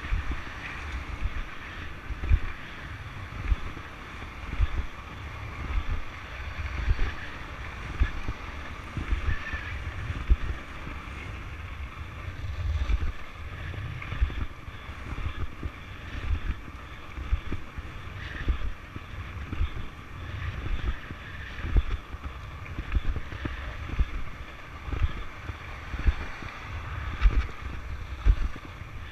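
Wind buffeting the microphone of a camera riding on a longboard, over the steady roll of the board's wheels on asphalt. The low rumble surges every second or so.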